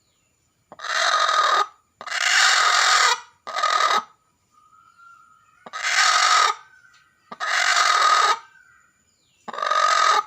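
Domestic hen giving six loud, harsh squawking calls in a row, each under a second long, with short pauses between.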